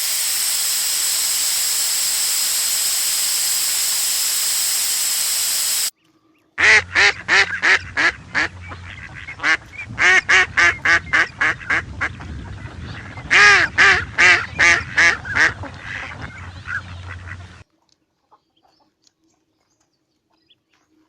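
A steady hiss for about six seconds that stops abruptly, then ducks or geese calling over and over in quick, honking quacks for about eleven seconds.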